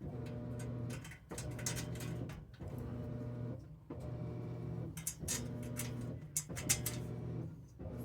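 A small electric motor whirring in repeated bursts about a second long, with short gaps and scattered clicks between them.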